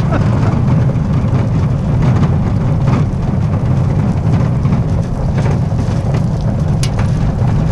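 Wheels of a dog-pulled summer training rig rolling over loose gravel: a steady rumble with a crackle of crunching stones.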